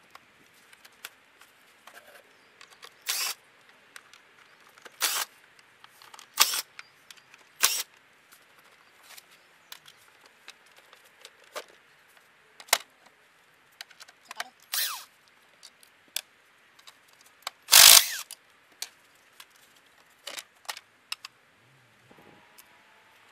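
The stock air intake of a Mini Cooper S R56 being taken apart by hand with a screwdriver: irregular clicks, knocks and clatters of intake parts and the tool, with one much louder knock about three-quarters of the way through. The engine is off.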